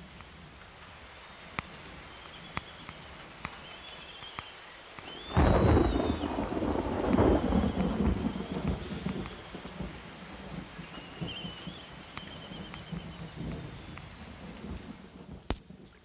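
Steady rain falling in a thunderstorm, with single drops ticking. About five seconds in, a loud clap of thunder breaks and rumbles on for a few seconds before fading.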